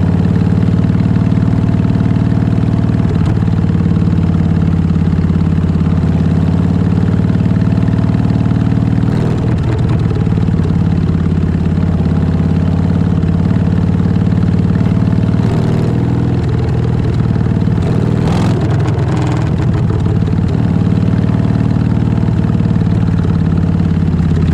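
Harley-Davidson Fat Bob's Milwaukee-Eight 114 V-twin running through an aftermarket Vance & Hines full exhaust system, holding a steady, deep engine note. The note is briefly unsettled twice around the middle.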